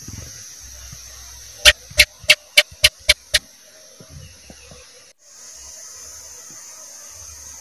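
House gecko (cicak) calling: a run of seven sharp chirps, about three or four a second, lasting under two seconds and fading slightly toward the end, over a steady hiss.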